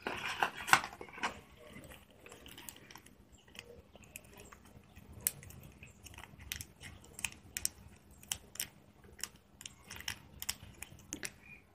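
A small plastic packet holding a SIM-ejector pin crinkling and crackling as fingers handle and open it, with scattered light clicks, loudest in the first second or so.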